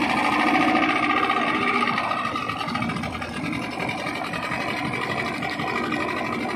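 Yamaha Enduro 40 hp two-stroke outboard motor running steadily with the boat under way, water rushing and churning past the lower unit. The engine is a little louder for the first two seconds, then settles.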